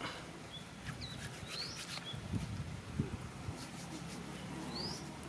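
A bird calling: a quick upward-sweeping chirp twice, with a few short high notes between, over a low steady background rumble.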